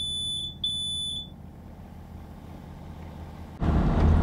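Electronic alarm beeping a single high tone in long, evenly repeated beeps, two of them, stopping just over a second in. Near the end a much louder low rumble starts abruptly.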